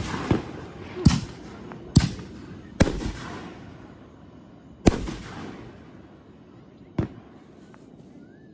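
Fireworks going off: about six sharp bangs, the first few roughly a second apart and the last two spaced wider, each trailing off in a rolling echo.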